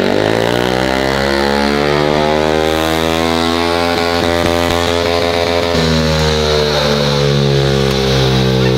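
Small motorcycle engine running, its pitch drifting up and down with a sudden change about six seconds in.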